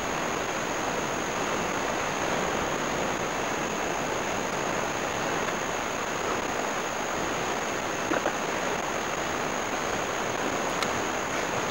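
Steady rush of ocean surf washing onto the beach, with a thin, steady high-pitched whine above it.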